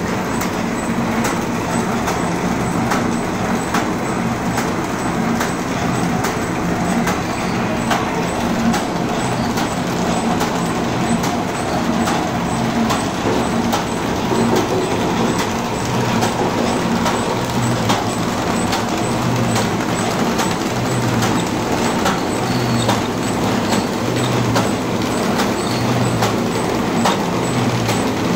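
Paper bag making machine running steadily, a continuous mechanical clatter with a regular, evenly spaced clicking beat as the kraft paper web feeds through.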